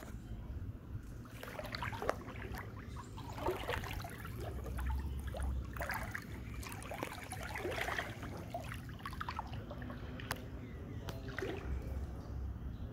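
Footsteps wading through shallow floodwater, each step sloshing and splashing, irregularly about once a second.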